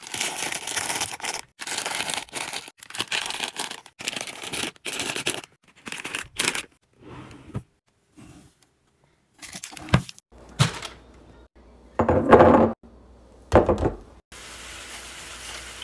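Plastic crisp packets crinkling and rustling as they are pushed into a drawer. After a pause come a few separate knocks and scrapes, the loudest near the end, with a faint steady hiss just before the close.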